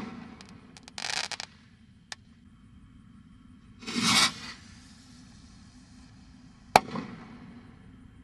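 Brothers Corona Rockets, consumer firework rockets, going off: a short hissing launch about a second in, a louder hiss of another launch around four seconds, and a sharp bang with a quick echo near the end.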